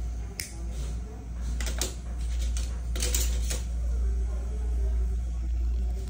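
Small sharp metal clicks and snips of orthodontic pliers working the archwire on fixed braces, several in the first few seconds, over a steady low hum.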